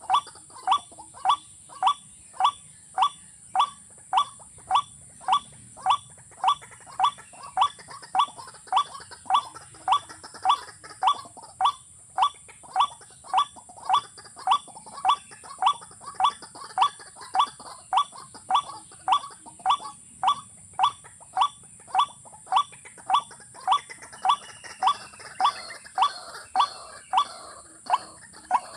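A bird's short call repeated very evenly about twice a second, each a quick falling note. A steady high-pitched hiss runs underneath.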